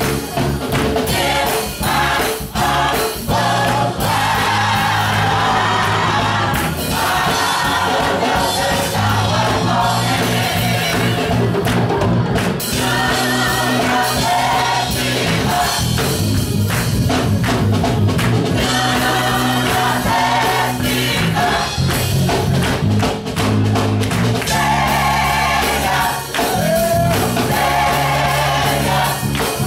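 Gospel choir singing, mostly women's voices, over held low accompanying notes.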